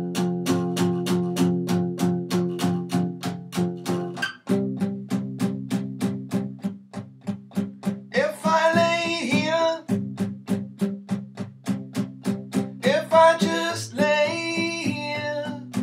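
Steel-string acoustic guitar strummed in quick, even strokes on low power chords, played hard for a rockier accompaniment, with a chord change about four seconds in. A man sings two short phrases, around the middle and near the end.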